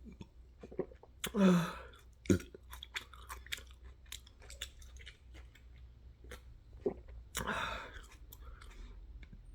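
Loud close-up chewing of pizza and salad: a run of mouth clicks and smacks, with two longer, louder mouth sounds about a second and a half in and again near eight seconds.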